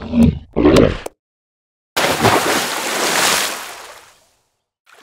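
A California sea lion barking twice in harsh, loud calls. After a short silence comes a loud rushing splash of water that swells and then fades away.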